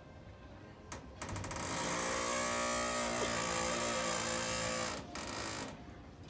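Gun cabinet alarm buzzing loudly and harshly for about four seconds, then cutting off, set off because the door was not opened and closed quickly enough. A single click comes just before it starts.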